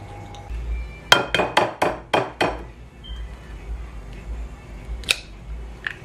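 An egg tapped about six times in quick succession against the rim of a bowl to crack its shell, each tap a sharp knock with a short ring, followed later by a couple of single clicks of eggshell.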